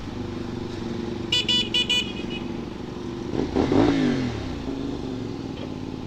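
Sport motorcycle engine running steadily on the move, with a horn tooted four quick times about a second in. About halfway through comes a single short rise and fall in pitch.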